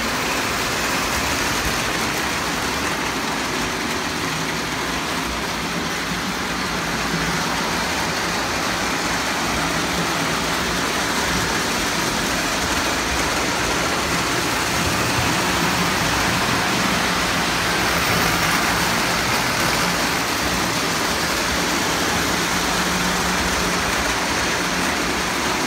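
Lionel O-scale steam locomotive and passenger cars running steadily on three-rail track: an even rolling rumble of wheels and motor.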